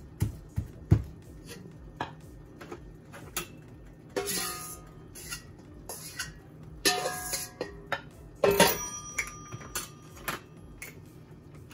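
A wooden pestle pounding boiled cassava in a wooden mortar, a few dull thuds at the start. Then a spoon scraping food out of a stainless steel bowl, several scrapes with the metal bowl clanking and ringing briefly.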